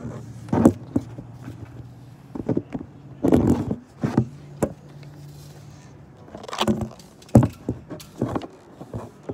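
A phone camera being handled and set in place on a concrete box: a string of knocks, bumps and rustles from hands on the phone. A steady low hum runs underneath for much of the first two-thirds.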